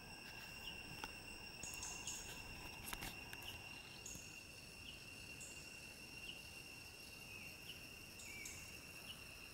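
Faint, steady high-pitched drone of tropical forest insects, a continuous tone with a higher overtone. Short chirps repeat over it about once a second.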